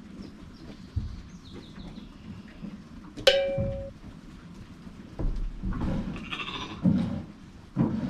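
A sheep bleating for about a second, around six seconds in. About three seconds in, a single sharp metallic clang rings briefly.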